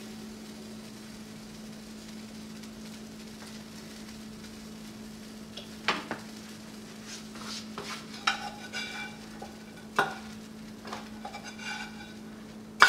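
A steady low hum, then from about six seconds in a run of clinks, knocks and scrapes of metal utensils against a ceramic bowl and dishes.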